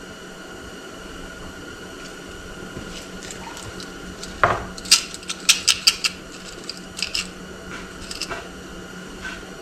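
Small metal clicks and clinks, loudest in a quick cluster about halfway through and a few more near the end: loose nails being picked through and handled.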